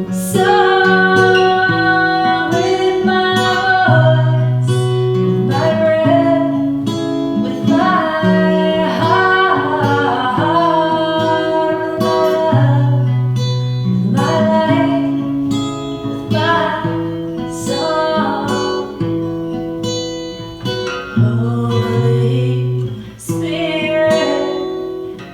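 Acoustic guitar strumming the chords of a slow worship song, with a female voice singing a melody over it at times.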